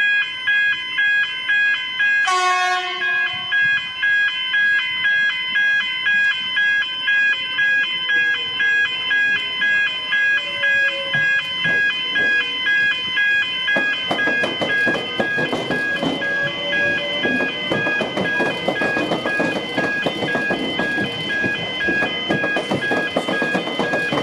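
Level-crossing electronic warning alarm sounding loudly in steady repeated pulses, with a sharp ringing hit about two seconds in. From a little past halfway, an X'Trapolis suburban train rumbles and clatters slowly through the crossing beneath the alarm, its wheels clicking over the rail joints and tram square.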